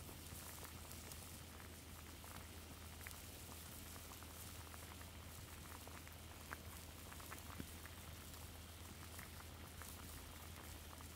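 Water with cherry branches simmering in a large enamel pot, a faint bubbling with scattered small pops as it makes a cherry-bark dye bath.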